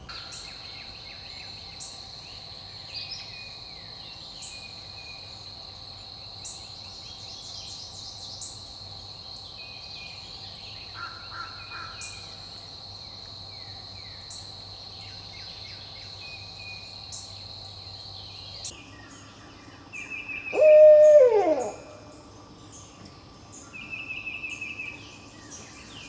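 Barred owl hooting: one loud call about twenty seconds in that slides down in pitch at its end, heard after a steady high-pitched drone that stops shortly before it.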